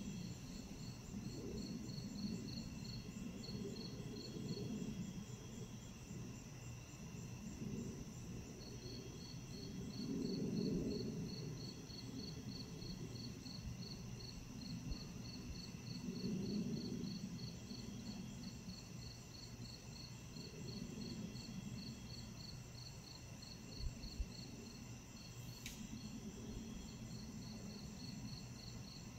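Night-time crickets and other insects: one chirps in a steady rhythm of about three pulses a second, pausing twice, over several unbroken high trills. A low rumble swells and fades beneath them, and there is a single faint click near the end.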